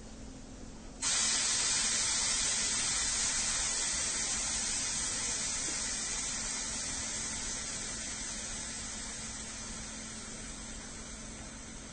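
Train at a station letting off steam: a loud hiss starts suddenly about a second in and slowly fades away, over a low steady hum.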